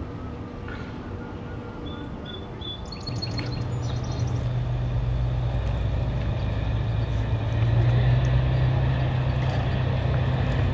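Log-boom tugboat engine running with a low, steady drone that comes in about three seconds in and grows louder later. A few small-bird chirps sound before it.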